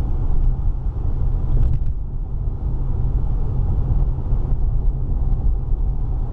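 Cabin noise of a 2016 Mercedes C300 coupe with a 2.0-litre turbocharged four-cylinder, cruising: a steady low rumble of engine and road with no rise or fall in pitch.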